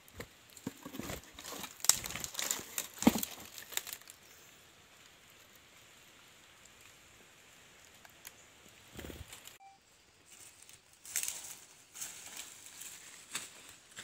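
Close rustling and crinkling handling noise, with sharp clicks, as a captured wild bird is held in the hand among dry leaves and grass. Busy for the first few seconds, then quiet, with a low thump about nine seconds in and more rustling after.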